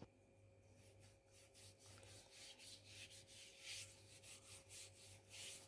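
Faint rubbing and scraping of a wooden-handled utensil swept back and forth across the base of a nonstick frying pan, spreading cooking oil, in quick repeated strokes that grow a little louder after about two seconds.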